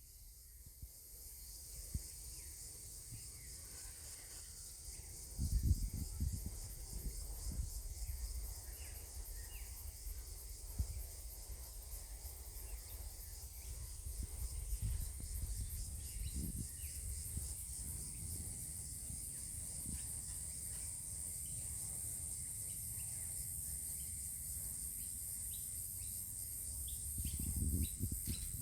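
Steady high-pitched chorus of insects trilling, with a few low rumbles about five seconds in, halfway through and near the end.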